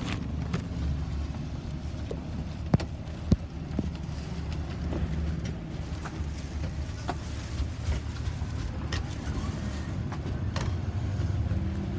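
Low, steady road-traffic rumble with two sharp knocks a little over half a second apart, about three seconds in.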